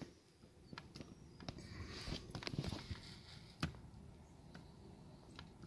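Faint scattered clicks and taps as a finger works a dash-mounted touchscreen gauge, with small handling noises, in a quiet cab with the engine off. The loudest click comes about three and a half seconds in.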